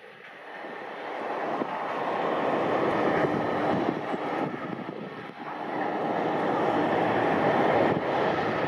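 Passenger airliner's engine noise growing steadily louder as the aircraft comes closer on or near the runway, with a brief dip about five seconds in before it builds again.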